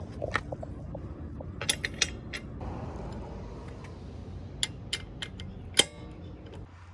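Sharp metallic clicks and clinks of socket-wrench hand tools (socket, extension, ratchet) being handled and fitted onto a car's wheel lug nuts, with a short scrape in the middle.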